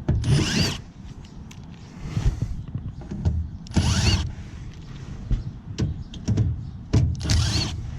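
A power drill whirs in three short runs, each rising in pitch, roughly three and a half seconds apart, with clicks and knocks of sheet metal between them as an old furnace is taken apart.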